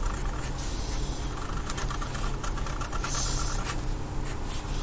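Marker pens scratching on paper in short strokes as two children draw, over a steady low background hum.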